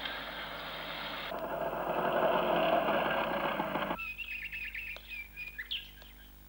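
A steady rushing noise that cuts off abruptly about four seconds in, followed by small birds chirping in quick runs of short high notes.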